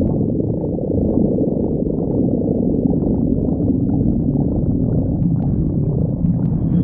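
Human stomach growling: a continuous low, rumbling gurgle without breaks.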